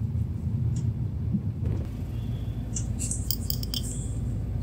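Steady low engine and road rumble inside a moving car's cabin, with a few light clicks and rattles about three seconds in.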